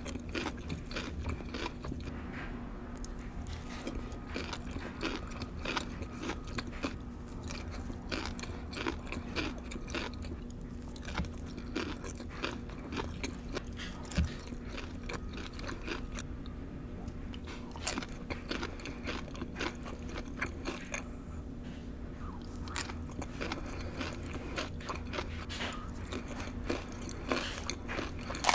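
Close-up mouth sounds of a person eating raw cucumber and tuna: crisp crunching bites and wet chewing, in irregular quick crackles.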